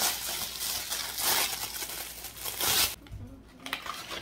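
Packaging crinkling and rustling as a merchandise item is unwrapped. It is loud and continuous for about three seconds, then drops to a few softer rustles.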